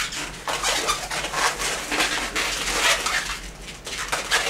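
White 260 latex modelling balloon squeaking and rubbing in irregular bursts as tiny bubbles are twisted off it.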